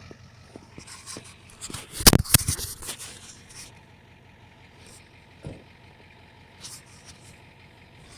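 A truck engine idling low and steady in the background, with a short burst of loud knocks and scraping about two seconds in and a single lighter knock a few seconds later.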